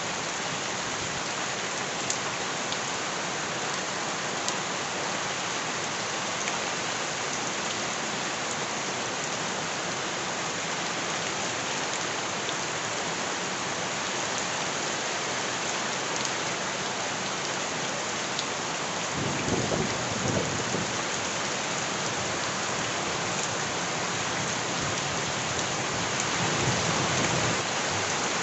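Steady heavy rain falling on surfaces, with scattered sharp drips. A low rumble of thunder swells up about two-thirds of the way through and again near the end.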